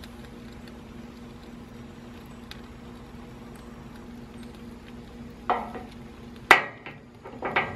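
Barbecue-glazed squirrel meat sizzling on a charcoal grill grate as sauce is brushed on, with a steady low hum under it. A sharp knock about six and a half seconds in is the loudest sound, with brief rustles just before and after it.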